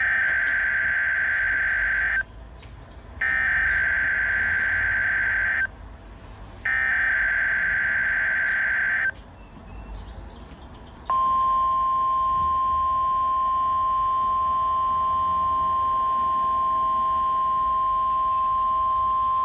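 NOAA Weather Radio alert test tones. Three bursts of SAME digital header data, each a raspy buzz of about two and a half seconds with about a second of pause between, are followed about eleven seconds in by the steady 1050 Hz warning alarm tone, which holds.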